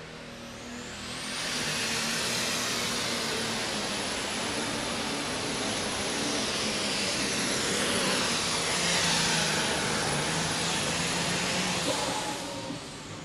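Turbocharged diesel super stock pulling tractor running at full power through a pull. A high turbocharger whistle rises in about a second in and holds over the engine noise. The engine drops off near the end as the run finishes.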